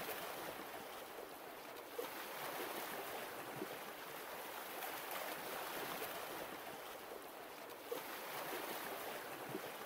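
Steady rushing water, an even hiss-like wash, with a few faint ticks about two, three and a half and eight seconds in.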